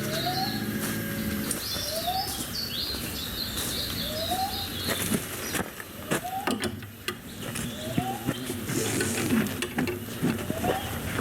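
Outdoor wildlife sounds: a short rising call repeats about every one and a half seconds, over high chirping in the first half. Scattered clicks and knocks join from about halfway.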